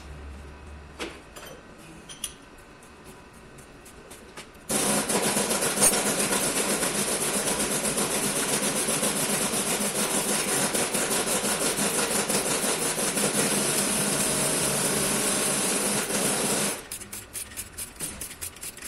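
A power tool runs loudly and steadily for about twelve seconds, starting about five seconds in and cutting off suddenly. A few sharp clicks come before it, and quieter rhythmic scraping strokes follow.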